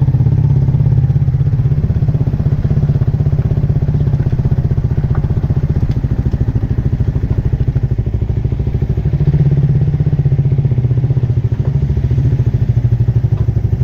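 Suzuki Raider Fi 150's single-cylinder engine running steadily at low revs through an aftermarket black Indo exhaust can with a built-in honeycomb baffle, its note bouncing off close alley walls.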